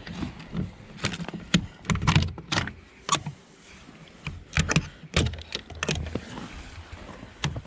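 About a dozen sharp, irregular clanks and knocks as a chicken waterer and the coop door are handled.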